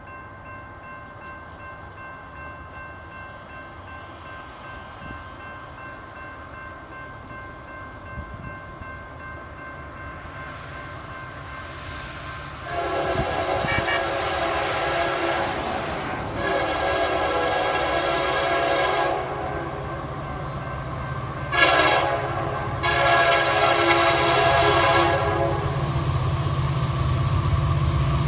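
The Nathan K3LA air horn on Union Pacific SD70M 4172 sounds the grade-crossing signal, starting about halfway in: two long blasts, a short one, then another long blast. The low rumble of the approaching freight's diesel locomotives grows near the end.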